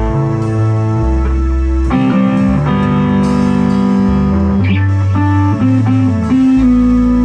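Instrumental rock band playing: electric guitar holding sustained notes over bass notes and drums, the guitar part growing busier about two seconds in.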